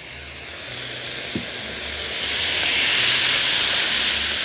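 Fried eggplant and garlic sizzling and steaming in a hot wok after a spoonful of white vinegar has gone in. The hiss grows louder about two seconds in.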